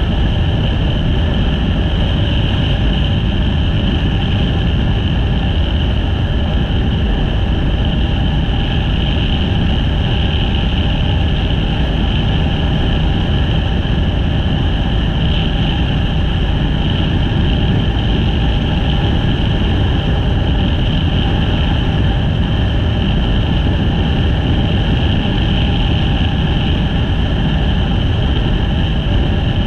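Motorcycle riding along at a steady road speed: engine running with wind and road noise, steady throughout.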